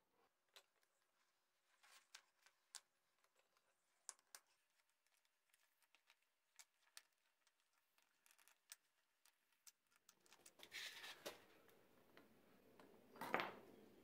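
Faint scattered clicks and light metal taps as tongs work freshly cast ingots out of their molds. A louder clank with a short ring comes about a second before the end, as an ingot is set down.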